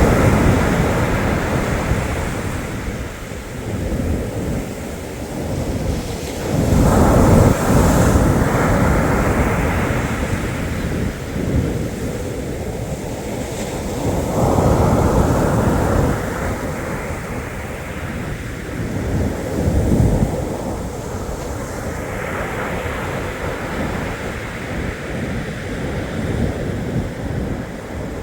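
Black Sea surf: waves breaking and washing up the shore about every seven or eight seconds, each surge swelling and then fading, with wind buffeting the microphone.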